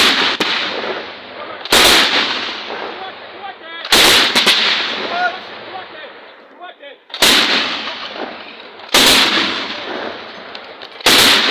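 Heavy gunfire: six loud single shots, roughly every two seconds, each followed by a long echoing tail that fades over a second or more. Faint distant voices can be heard between the shots near the middle.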